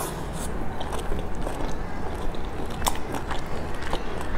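Close-up chewing of a pan-fried dumpling: wet mouth sounds with irregular clicks and smacks.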